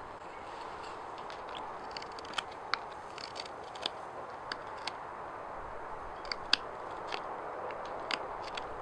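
Hand-forged Yakut knife carving shavings from a birch wooden sheath insert: a string of short, crisp cutting snicks at irregular intervals over a steady background hiss.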